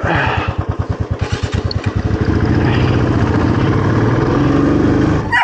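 Royal Enfield Classic 350's single-cylinder engine pulling away: distinct, evenly spaced thumps at first, merging after about two seconds into a steadier, fuller drone as the bike gathers speed.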